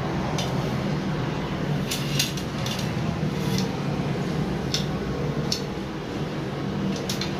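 Light clicks and taps, about eight of them at irregular spacing, as wrapped carbon fishing rods are handled, over a steady low background hum.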